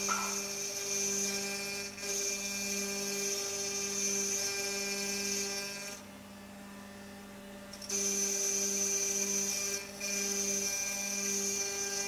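Shapeoko Pro's VFD spindle turning a 1/8" end mill at 12,000 rpm, engraving into a cast iron pan: a steady hum with a high cutting whine over it. About six seconds in, the sound drops away for about two seconds, then resumes.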